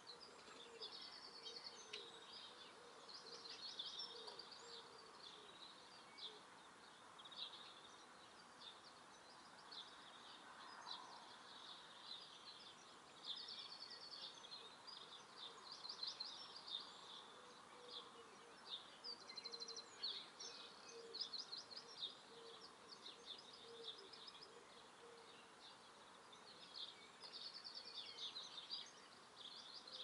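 Faint garden birdsong: small birds chirping and giving quick trills of high notes, in bursts every second or two over soft background noise.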